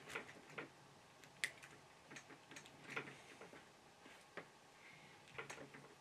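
Faint, irregular ticks and clicks of an F connector being twisted by hand onto a coaxial cable, about eight scattered clicks with the sharpest about a second and a half in.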